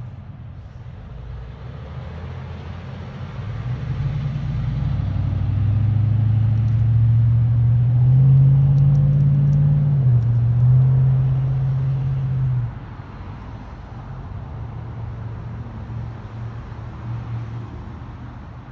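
An engine running with a low hum that grows louder over several seconds, steps up in pitch in the middle and back down, then cuts off suddenly about two-thirds of the way through, leaving a lower steady rumble.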